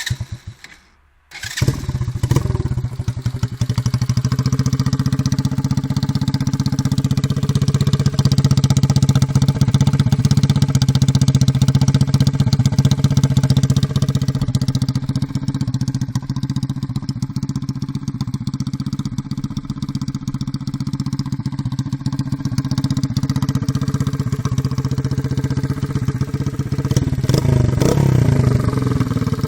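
Barton Volcano 125cc motorcycle engine starting about a second and a half in, then idling steadily, with the revs rising and falling near the end.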